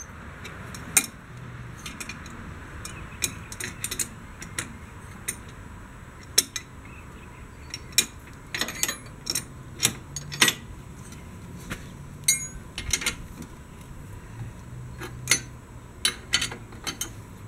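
Steel wrenches clinking and clicking irregularly against bolts and a steel hitch plate as the bolts are tightened, one wrench turning the bolt head while a second holds the nut beneath so it does not spin.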